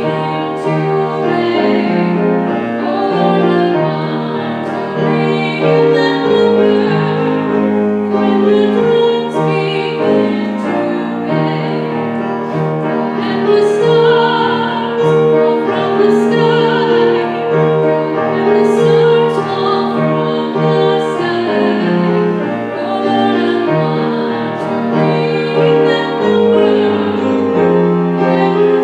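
Slow classical-style music: held chords changing about once a second, with a wavering singing voice over them.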